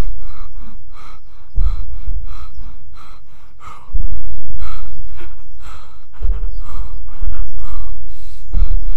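Rhythmic gasping breaths, about three a second, over deep bass hits that land four times, roughly every two seconds, each fading away before the next.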